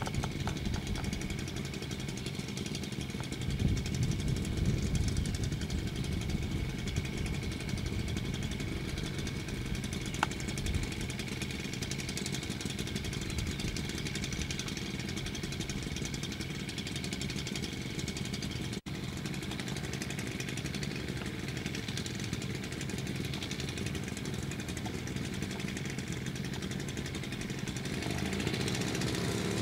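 Paramotor engine idling steadily, its pitch and loudness rising as it begins to rev up near the end.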